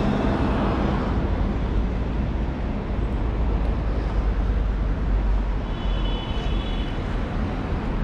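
City street traffic: cars passing close by, a steady rumble of engines and tyres on asphalt. A brief faint high whine comes through about six seconds in.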